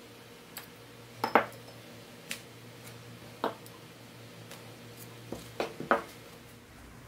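Metal tweezers clinking against a small glass jar as small metal axles and wheels are lifted out and set down. A handful of separate sharp clinks and taps, with a quick run of three near the end.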